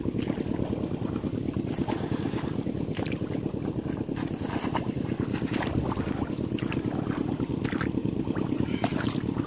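Wind rumbling and buffeting on the microphone, with scattered short splashes of feet wading through shallow water.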